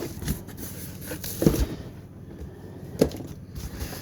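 Cardboard parcel packaging being cut and pulled open by hand: rustling and scraping for the first second and a half, with three knocks, the loudest about a second and a half in.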